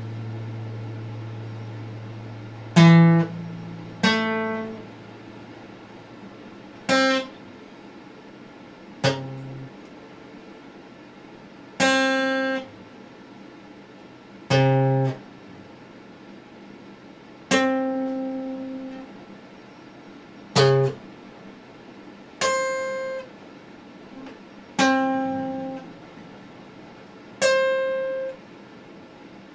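Acoustic guitar played slowly, with about eleven single plucked notes spaced two to three seconds apart, each left to ring and fade before the next.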